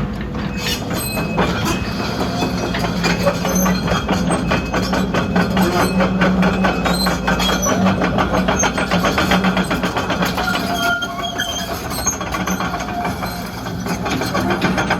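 Sumitomo SH120LC-6 excavator running: a steady low diesel drone under a rapid, continuous metallic clatter.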